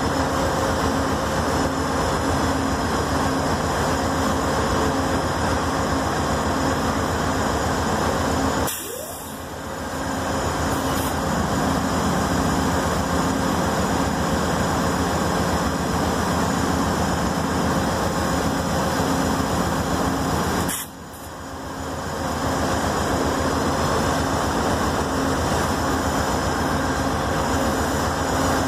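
Double-stack intermodal freight train rolling past: a steady rumble and rattle of wheels on the rails and cars going by. The noise dips sharply twice, about nine and twenty-one seconds in, each time coming back within a second or so.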